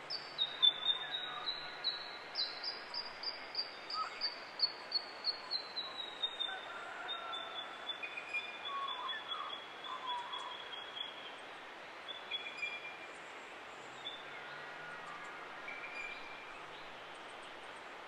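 Forest birds singing. One bird repeats a high note about two or three times a second for the first ten seconds or so, the series slowly falling in pitch and fading. Softer calls from other birds sound behind it over a steady background hiss.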